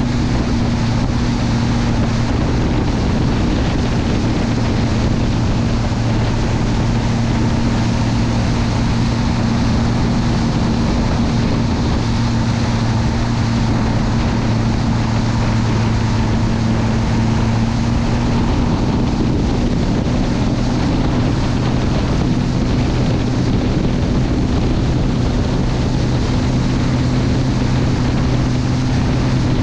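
Mastercraft Prostar 190 ski boat's inboard engine running at a steady cruising speed, a low even drone, under wind on the microphone and the hiss of the hull's spray and wake.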